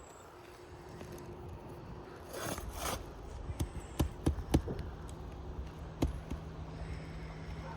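A pry bar working under asphalt roof shingles to reach the nails: a brief scrape, then several sharp knocks, four close together and one more about a second and a half later.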